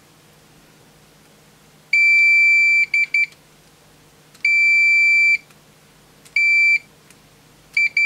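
A Fluke 289 multimeter's continuity beeper sounds in irregular high beeps as contact is made and broken across a brake light switch under test. The pattern is two roughly one-second tones, a half-second tone, and short chirps between and near the end. The stop-start beeping is the sign of an intermittent, unreliable contact.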